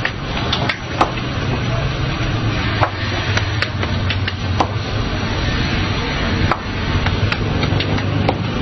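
Dough being slapped and thrown against a counter by hand: about a dozen sharp, irregular slaps over steady street noise with a low hum.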